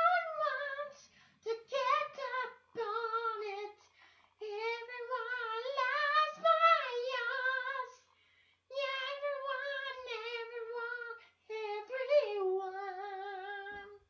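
A high solo voice singing a cappella, with no instruments, in about six drawn-out phrases with a wavering vibrato and short breaths between them.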